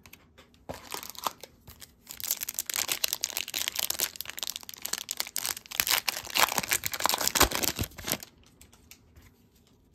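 A trading-card pack wrapper being torn open and crinkled by hand: a dense crackling and tearing that starts about a second in and stops a couple of seconds before the end.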